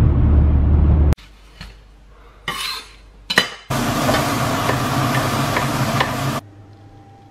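Road rumble inside a moving car for about the first second, cut off abruptly. Then a few scrapes and clinks of a wooden spatula in a stainless frying pan, followed by about three seconds of meat sizzling as it is stirred, which stops suddenly.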